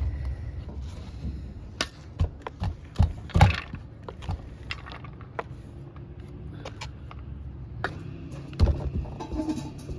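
Kitchen knife chopping garlic on a wooden cutting board: a handful of sharp, uneven knocks, then the blade scraping the chopped garlic across the board into a steel tray, over a low steady rumble.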